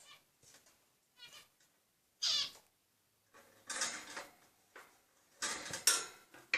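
Pet birds giving shrill chirping and squawking calls in three main bursts, with fainter calls between.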